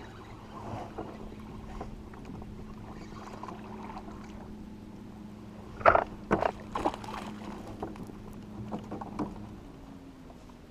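A hooked largemouth bass thrashing and splashing at the surface beside a kayak as it is landed, with a burst of loud splashes about six seconds in and a few smaller ones later. A steady low hum runs underneath.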